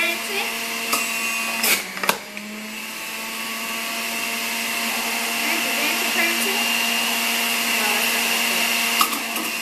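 Electric juicer motor running steadily with a hum and a high whine while apple pieces are fed down its chute and shredded, growing slightly louder over several seconds. Two sharp knocks about two seconds in.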